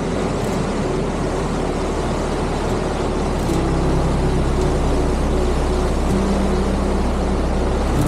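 Steady roar of a waterfall: an even, loud rush of falling water.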